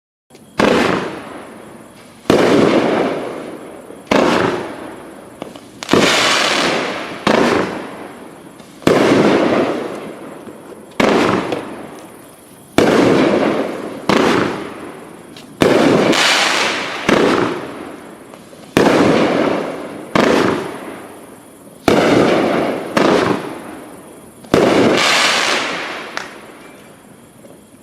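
Sunwing "Neon Vision" consumer firework cake firing its shots one after another, about sixteen in all, one every one and a half to two seconds. Each shot is a sharp bang that fades out over a second or so.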